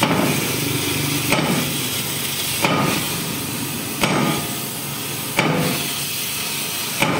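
Hammer blows on the metal parts of a tank road wheel, struck at an even pace of about one every second and a third, six in all, some with a short metallic ring, over a steady background hiss.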